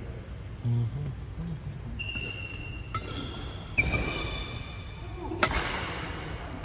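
Badminton rally on an indoor wooden court: shoes squeaking on the floor, and the sharp crack of a racket striking the shuttlecock a little past the middle, ringing briefly in the hall.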